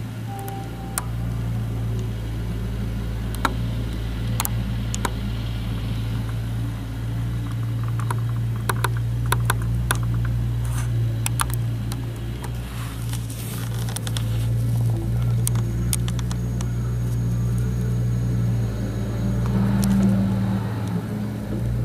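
Mustang 2054 skid steer loader's engine running steadily, with scattered sharp clanks and knocks. The engine gets briefly louder near the end.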